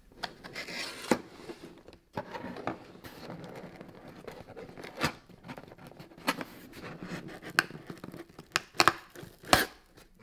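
Cardboard shipping box being torn open by hand: rustling and scraping of the cardboard, broken by several sharp rips, more of them near the end.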